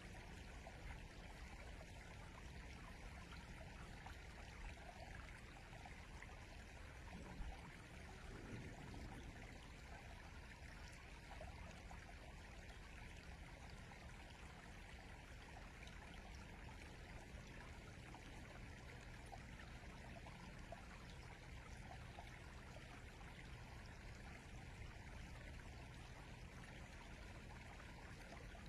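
Faint, steady rush of a flowing river, with a brief swell about a third of the way in.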